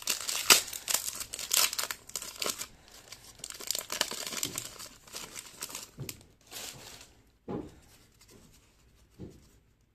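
Foil wrapper of an NRL trading-card pack crinkling and tearing as it is ripped open by hand. The rustling is dense for the first few seconds, then thins to a few scattered rustles.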